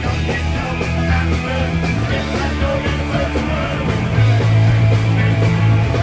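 Punk rock band playing loud and fast: distorted electric guitar, bass and drums, the bass note changing about four seconds in.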